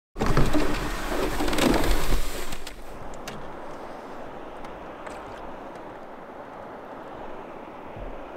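Water washing and lapping against a canoe hull on open water, with wind. It starts loud for the first two and a half seconds, then settles into a steady, softer wash.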